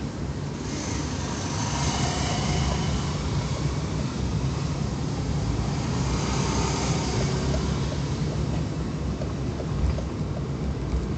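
Car driving slowly through city traffic, heard from inside the cabin: a steady low engine and road rumble, with a hiss that swells twice, about two and six seconds in.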